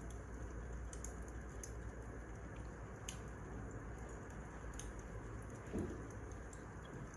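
Wood fire crackling: a steady low rumble of the flames with scattered sharp snaps and pops, and a single slightly louder soft thump a little before the end.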